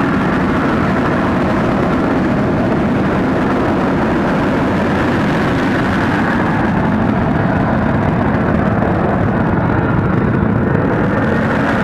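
An F-35B's F135 jet engine and lift fan running steadily at high thrust while the jet hovers. The sound is a loud, constant roar with a few faint held tones.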